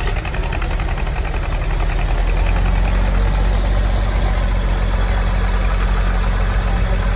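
Diesel tractor engines running with a steady low drone, which grows a little louder and steadier about two and a half seconds in.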